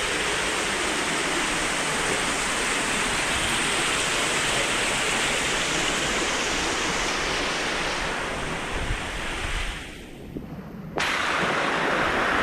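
Waterfall rushing steadily, close by. Near the end it drops away briefly and then comes back all at once.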